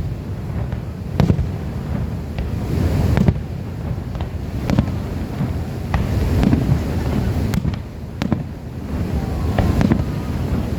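Fireworks going off: irregular sharp bangs about a second apart over a steady low rumble.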